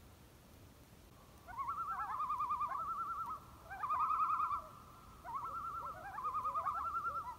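A bird calling in rapid quavering phrases, four of them, starting about a second and a half in, over a faint steady high tone.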